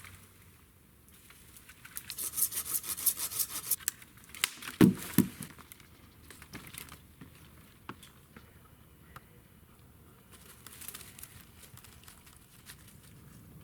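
Close rustling, crinkling and tearing handling sounds, with a fast rasping run of strokes for a couple of seconds, then two low thumps about five seconds in, followed by scattered faint ticks and rustles.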